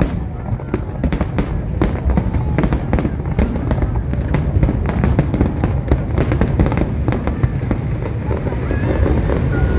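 Fireworks display: aerial shells bursting in quick succession, many sharp bangs and crackles a second over a continuous low rumble.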